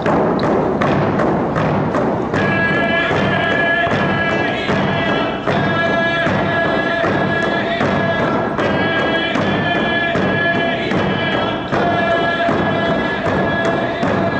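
Painted hide hand drums beaten in a steady beat, about three strokes a second, joined about two seconds in by a group of voices singing a Northwest Coast song in long held notes.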